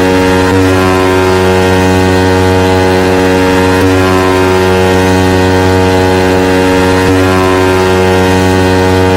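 A heavily compressed electronic track made for car sound-system battles ('racha de som'): a sustained, horn-like synth chord buzzes over a continuous deep bass drone, and the chord shifts slightly about every three seconds.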